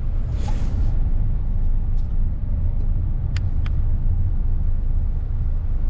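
Car driving in city traffic, heard from inside the cabin: a steady low rumble of engine and road noise. Two short, sharp clicks come close together about three and a half seconds in.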